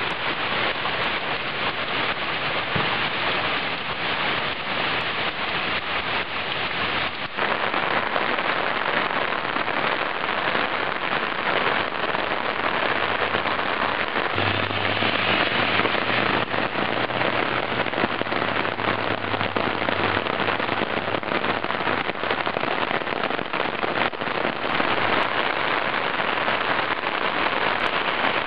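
Rain from a summer rainstorm falling steadily on the road, paving and lawn: a dense, even hiss that holds throughout.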